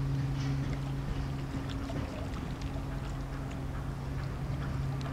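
Small waves lapping and ticking against a concrete quay edge. Under it runs a steady low hum that drops out briefly about one and a half seconds in.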